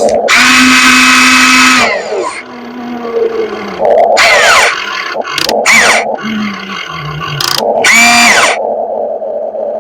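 RC excavator's electric motors and hydraulic pump whining in short stop-start spells as the controls are worked, the pitch gliding down in places, with clicks between.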